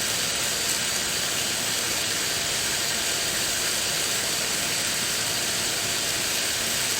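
Steady, even rushing of water, a constant hiss-like roar with no breaks or changes in level.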